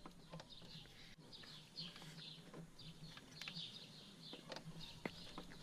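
Faint, repeated short bird chirps, with a few light clicks.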